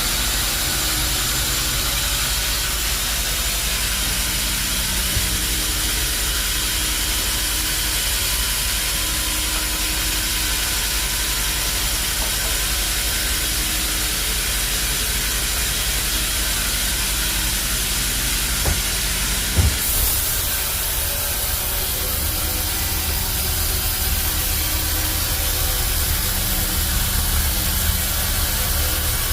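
Sawmill machinery running steadily, a motor hum under a constant hiss, with a brief knock about two-thirds of the way through.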